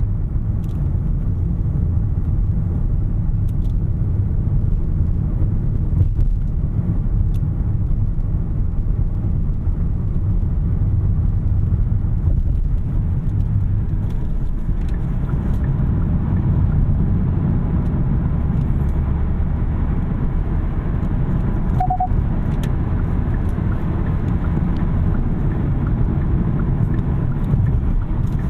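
Steady low road and tyre rumble inside the cabin of a 2021 Kia K5 Hybrid sedan cruising on an expressway. A brief high beep sounds once about two-thirds of the way through.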